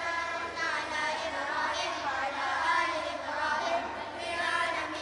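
Children's high voices singing a group chant in short, rising and falling phrases.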